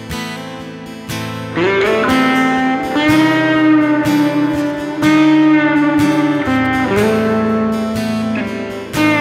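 Instrumental introduction of a song: an acoustic guitar strumming chords, joined about a second and a half in by a lead instrument playing sliding, sustained notes with vibrato.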